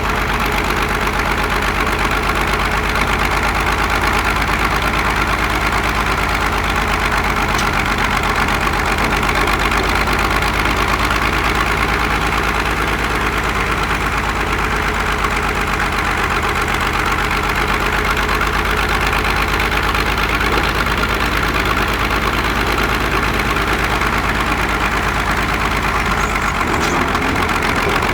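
Large engine idling steadily with an even firing beat, holding one speed throughout.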